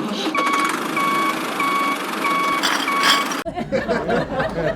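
Vehicle reversing alarm beeping five times at an even pace over a steady running noise. The beeping stops about three seconds in, and a lower rumble carries on.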